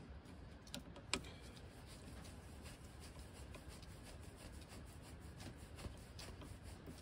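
A screwdriver tightening the screw of a ground rod clamp on a copper ground rod, clamping down the armored ground wire: faint scraping with a few small clicks, the sharpest about a second in.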